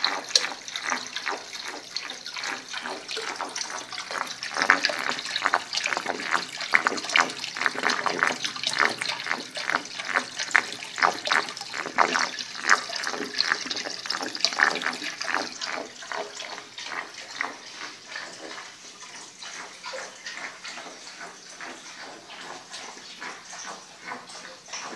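Water trickling and gurgling as it drains through the central standpipe of a pebble-filled aquaponics grow bed, a dense run of small splashes. It is loudest through the middle and eases off after about fifteen seconds.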